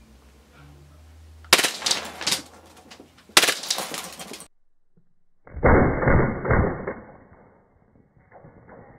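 Two gas blowback pistol shots about two seconds apart, each bursting a frosted glass light bulb, with a sharp crash and a second of tinkling glass. From about five and a half seconds in comes a slowed-down replay of a bulb shattering, deeper and muffled, with a weaker crash near the end.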